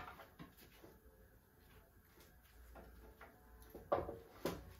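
A few light clicks, then two sharp metal knocks near the end, as the head of an Epple BS 125 GS metal band saw is swivelled on its base and set to a 45-degree mitre.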